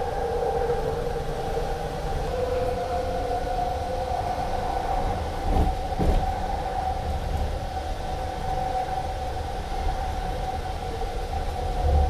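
A steady two-note whine over a low rumble, typical of a running vehicle's motor, with two knocks about half a second apart just past the middle.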